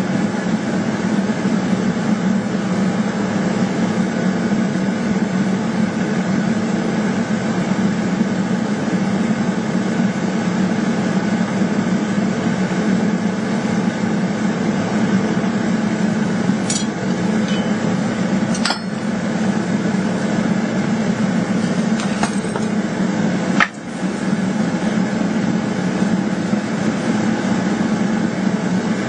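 Steady mechanical roar of workshop equipment, with a few sharp metallic clinks about two-thirds of the way through, the last one the loudest.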